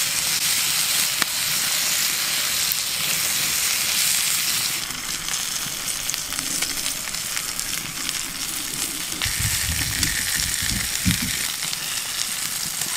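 Ribeye steak and onions sizzling in a hot cast-iron skillet over a campfire, a steady frying hiss. A few low bumps about ten seconds in.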